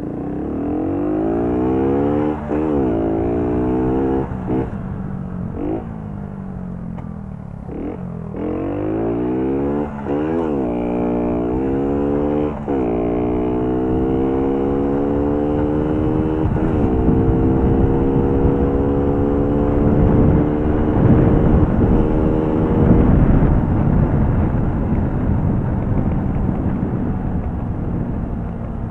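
Small four-stroke moped engine pulled hard under throttle: the revs climb and drop back sharply about six times in the first dozen seconds, then hold high and steady. A rush of wind noise on the microphone grows over the second half.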